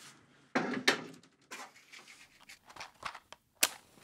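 Handling sounds at a kitchen counter: a short scraping rush about half a second in, then a run of separate sharp clicks and knocks, the sharpest near the end.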